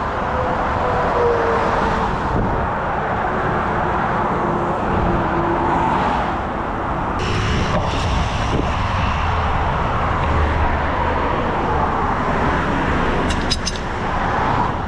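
Highway traffic rushing past steadily. A few sharp metallic clicks come near the end.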